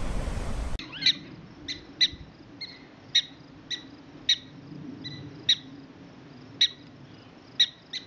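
Wind and water noise that cuts off suddenly under a second in, followed by a prairie dog giving a string of short, high chirping barks, about one or two a second.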